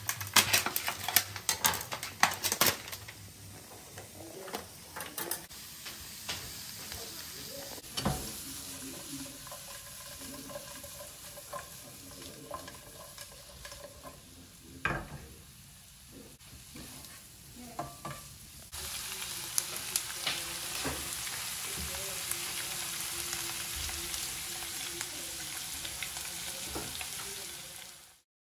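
Chopped peppers and onion sizzling as they fry in oil in a nonstick frying pan, with a quick run of clicks and rattles in the first few seconds and scattered knocks of the pan and utensils after. About two-thirds of the way through, the sizzle turns louder and steadier.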